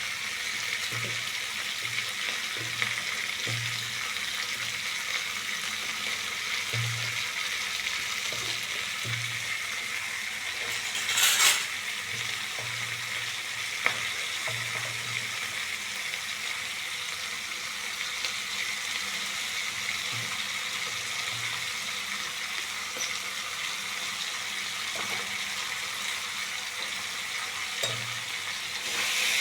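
Food frying in mustard oil in a pan, a steady sizzle, with a louder surge of sizzling about 11 seconds in and a few light clicks of the stirring spoon.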